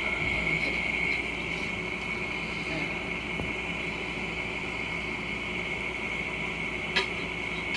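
A steady high-pitched drone over an even background hiss, with one short sharp click near the end.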